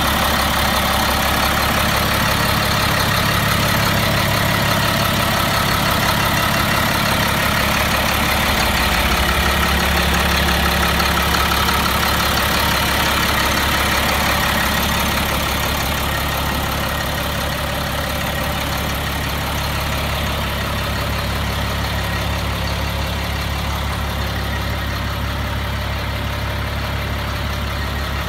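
Dump truck's diesel engine idling steadily, a little quieter from about halfway through.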